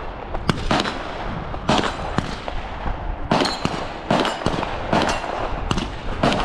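Rifle shots on a shooting range, about a dozen sharp cracks at irregular intervals, over a steady low rumble of wind on the microphone.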